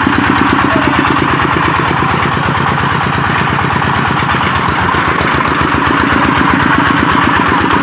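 Engine of a red-brick making machine running steadily, with a fast, even beat of firing pulses under a mechanical clatter.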